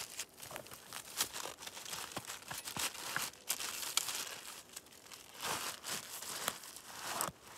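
A thin plastic bag crinkling as it is crumpled, folded and stuffed into a backpack pocket, in an irregular run of crackles that grows louder twice near the end.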